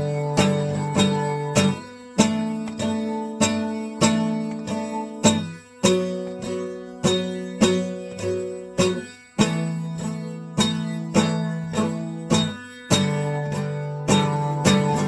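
Music: an acoustic guitar strumming chords in a steady beat, a stroke a little under every second, with the chord changing every few seconds.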